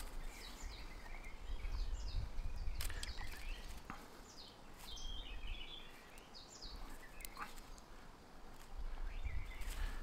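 Small birds chirping and calling in woodland, short repeated notes throughout, with a low rumble that swells twice and a few faint clicks.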